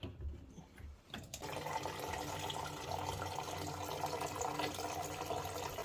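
Water running steadily out of a Baxi combi boiler's heating system as it is drained to bring down over-high system pressure, starting about a second and a half in after a few faint clicks.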